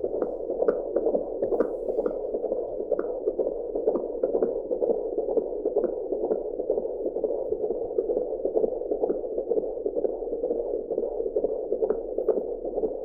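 Fetal heartbeat picked up by an AngelSounds handheld Doppler: a fast, rhythmic whooshing pulse over a steady hiss.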